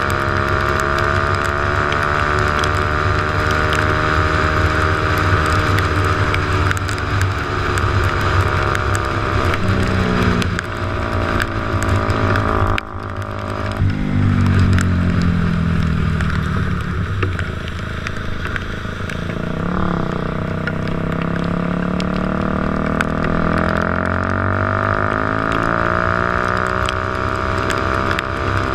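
Dirt bike engine running under way on a wet road, its pitch rising and falling with the throttle. The revs drop sharply about 13 seconds in and then climb again.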